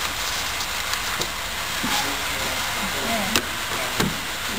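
Steady hiss of background noise, with a few short sharp clicks, the loudest about three and a half seconds in, and faint murmuring voices.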